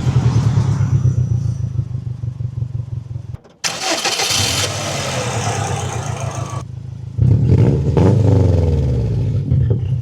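Turbocharged 2.5-litre flat-four engine of a 2007 Subaru WRX TR with a modified turbo and cat-back exhaust, running with a deep steady rumble. About four seconds in comes a short burst of hiss. From about seven seconds the engine is louder and revving, its pitch rising and falling.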